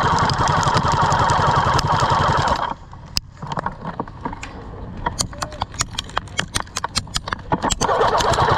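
Classic Army M134-A2 airsoft minigun firing a sustained burst, a fast motor-driven buzz that stops suddenly about two and a half seconds in. Scattered sharp clicks and snaps follow, then the minigun opens up again near the end.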